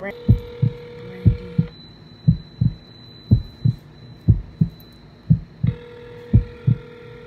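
Telephone ringback tone through the phone's speaker, ringing for about two seconds, then silent for about four, then ringing again while the call goes unanswered. Under it, and louder, a heartbeat sound effect of paired thumps about once a second.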